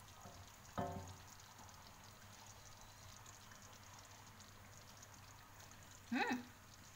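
Near-quiet room tone, broken by one short sound about a second in and a brief voice-like hum that rises in pitch near the end.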